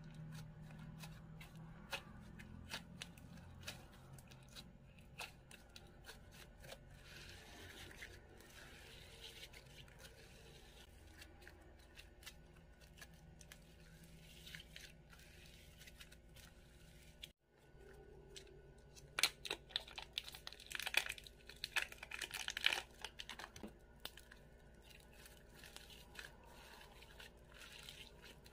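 Soft slime being stretched, folded and squeezed by hand, giving faint tearing and crackling sounds. About two-thirds of the way in, after a brief dropout, the crackles come in a denser, louder run for a few seconds.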